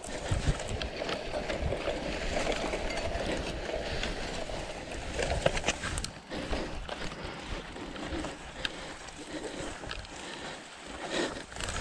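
Cyclocross bike tyres running down a sandy descent, a steady rushing and grinding, with a few sharp knocks and clatter about five to six seconds in as the bike goes down in the sand. After that the sound is quieter, with only scattered ticks.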